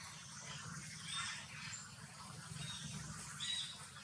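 Newborn long-tailed macaque giving about four short, high squeaks while nuzzling into its mother to nurse.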